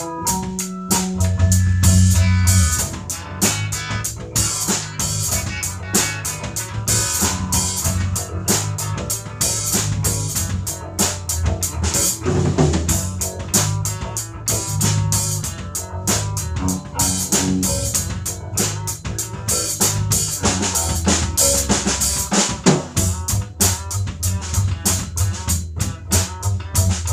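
Music with a fast, steady drum-kit beat of snare and bass drum over a deep bass line.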